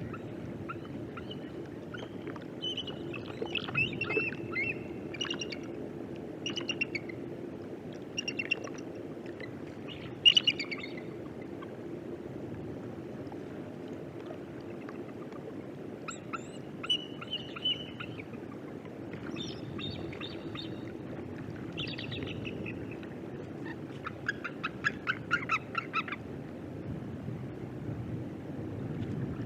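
Bald eagles calling: clusters of high-pitched piping and chattering notes, with a quick run of pulsed notes near the end, over a steady low hum.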